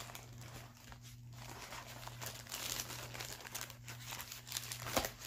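Paper burger wrapper crinkling and rustling as a fast-food burger is unwrapped and handled. The crackling is busiest in the second half, with one sharp crackle near the end, over a faint steady low hum.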